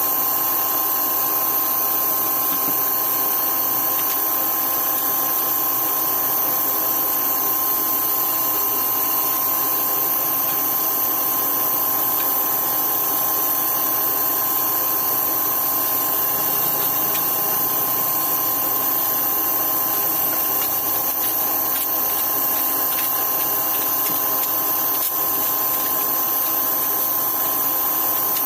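A power tool's electric motor running steadily for the whole stretch, with a constant whine and no pauses.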